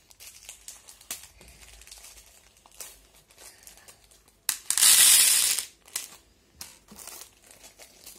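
Small plastic packets of beads crinkled and rustled by hand, with light clicks and taps, and one loud rustle lasting about a second about four and a half seconds in.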